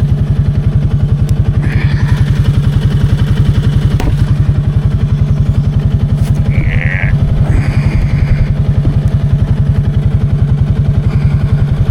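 Can-Am 700 XMR ATV engine running steadily, with an even, regular pulse.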